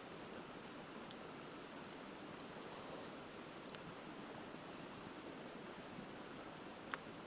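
Wood fire crackling, with a few sharp pops, the loudest near the end, over the steady rushing of a river.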